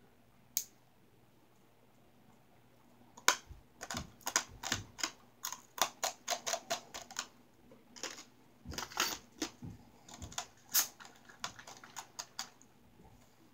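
Light-bulb glass being crunched between the teeth: a run of sharp, irregular cracks and clicks starting about three seconds in, with a brief pause near the middle, stopping shortly before the end.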